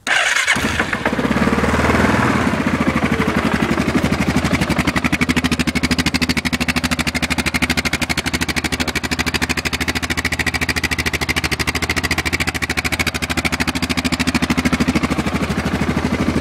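Yamaha Grizzly ATV's single-cylinder four-stroke engine firing up and settling into a loud, steady idle with a fast, even exhaust pulse. Its aggressive note comes from an exhaust with the spark arrestor removed and the inner part of the muffler tip cut off.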